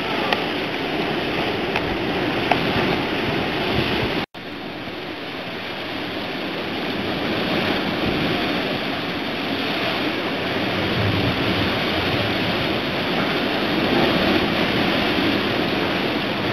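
Steady rush of rough, breaking sea with wind, no single event standing out. The sound cuts out for an instant about four seconds in.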